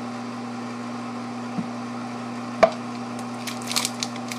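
Microwave oven running with a steady hum while it heats. A single sharp knock about halfway through and a few short rustles near the end.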